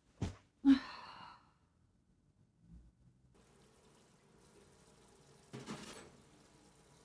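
A person gasps sharply on waking, then lets out a sigh. A few seconds later comes the low room noise of a kitchen sink being used for washing dishes, with a short splash of water about two thirds of the way through.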